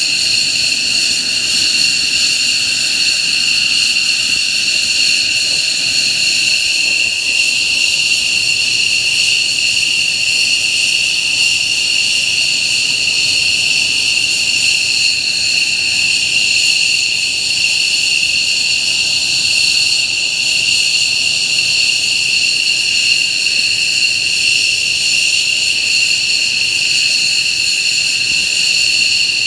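F-15J fighter's F100 turbofan engines running at ground idle on the parked jet: a steady, high-pitched turbine whine over a rushing background.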